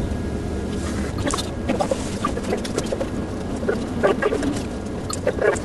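Plastic water bottle crackling as it is handled and drunk from: scattered light clicks and crinkles over a low steady hum.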